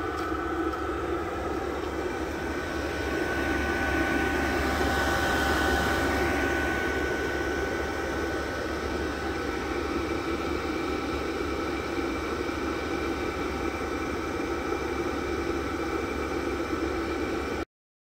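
VEVOR 8 kW all-in-one diesel air heater running: a steady fan hum with a constant whine over a rush of air, cutting off suddenly near the end.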